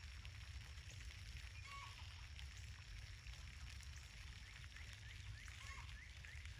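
Light rain falling, a faint steady patter with a low rumble underneath.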